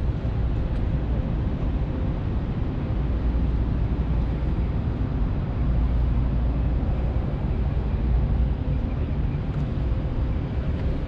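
Steady low outdoor rumble, strongest in the bass, with no distinct event standing out.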